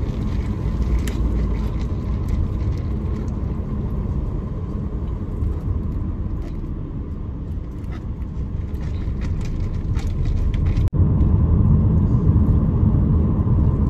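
Road and engine noise inside a moving Mazda car's cabin: a steady low rumble that grows louder about ten seconds in, with a brief dropout just before it peaks.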